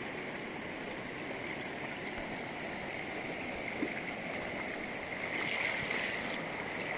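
River water flowing steadily past the bank, a continuous rushing wash that gets a little louder about five seconds in.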